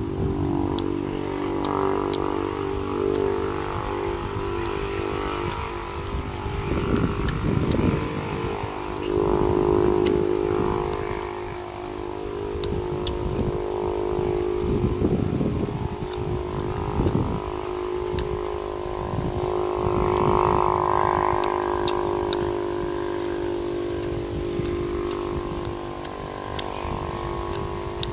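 A steady drone of several held low tones, shifting in pitch every few seconds, with scattered faint clicks over it.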